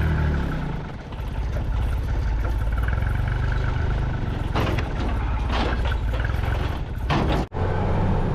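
Truck engine running steadily, with a few clatters and knocks from about four and a half to seven seconds in, and a brief cut-out of all sound shortly after.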